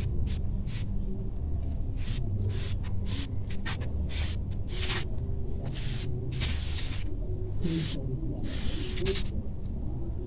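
Scissors cutting through cloth: an irregular run of short snips, each a brief hiss, about two a second, over a steady low hum.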